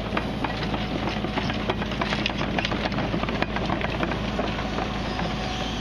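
Tracked excavator running, a steady engine hum under a rapid, irregular clatter of clicks and knocks from the machine.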